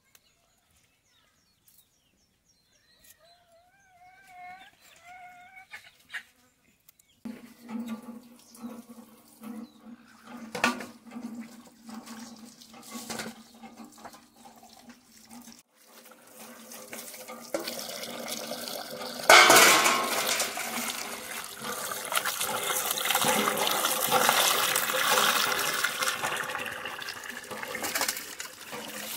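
Water pouring from a hand pump's spout and splashing onto a wet concrete platform and into a steel bowl as small fish are rinsed by hand, getting much louder in the second half. A few short chirping calls are heard a few seconds in.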